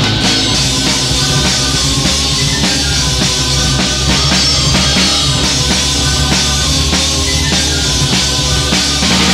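Black metal recording: a drum kit with steady, regular strikes under dense, loud guitars and bass.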